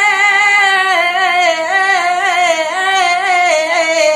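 A young man's high solo voice singing a verse of a nazm unaccompanied. He holds one long drawn-out note with wavering ornaments, and the pitch slowly sinks toward the end.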